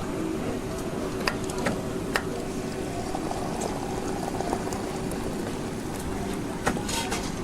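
Hot water pouring steadily into a teapot, with a few sharp clinks of crockery.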